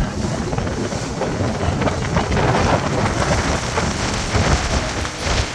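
Wind buffeting the microphone of a phone held out on the deck of a moving cruise boat: a heavy, uneven rumble and hiss.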